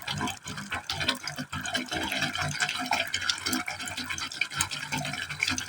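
Water falling into the open end of a pipe, a continuous, uneven splashing and gurgling of running water.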